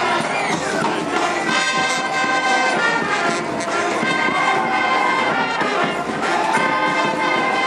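A street brass band playing a tune, several horns sounding held notes together.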